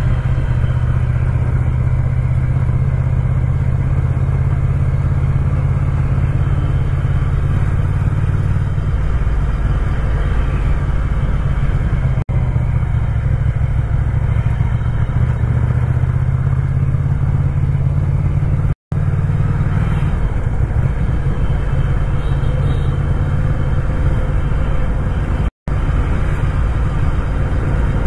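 Ducati Scrambler's air-cooled L-twin engine running steadily while riding, its low pitch shifting a little partway through. The sound drops out for an instant twice in the second half.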